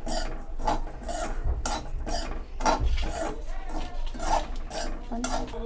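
Metal spatula scraping and stirring semolina as it roasts in a metal kadhai, in quick, uneven strokes against the pan.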